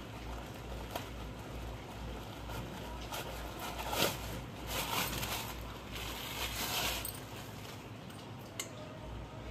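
Thin plastic bag rustling and crinkling as it is untied and pulled open, with a few louder swishes in the middle.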